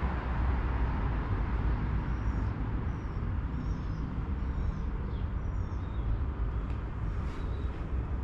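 Steady low outdoor rumble with no train passing. A small bird chirps faintly, a string of short, thin falling notes about twice a second, from about two to five seconds in.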